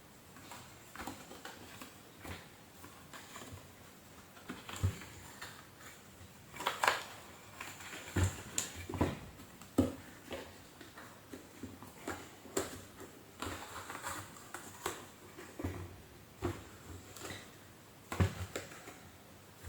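Irregular clicks and knocks of plastic and metal parts being handled while the motor is taken out of a vacuum cleaner's casing, with a few sharper knocks in the middle and one near the end.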